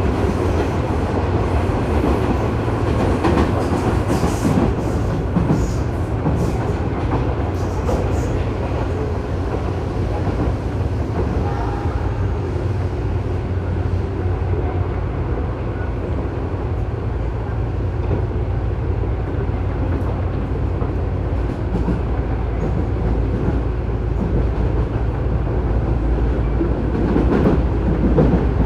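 Running noise inside a Tobu 9000 series electric train's motor car, above an armature chopper that makes an abnormal noise, with a steady rolling rumble on the move. Wheels click over rail joints in the first several seconds.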